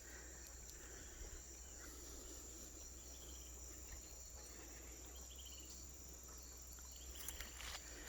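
Faint insect sound: a steady high-pitched drone like crickets, with three short pulsed chirps about two seconds apart and a few light rustling ticks near the end.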